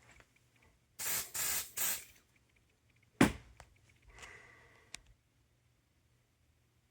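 Aerosol can of smoke-detector test spray hissing in three short bursts into a Simplex smoke detector, to set it off. A sharp click follows about a second later, then a fainter hiss ending in a small click.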